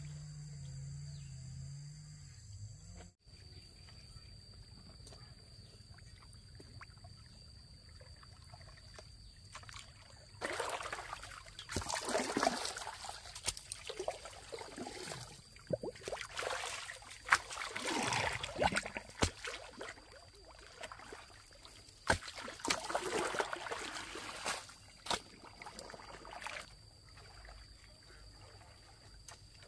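Water splashing and sloshing in shallow water, in irregular bursts with sharp slaps from about ten seconds in until near the end.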